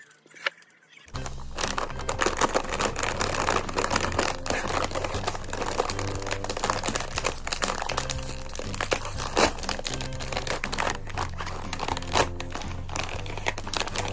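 Background music with a bass line starts about a second in, over frequent crinkling and clicking.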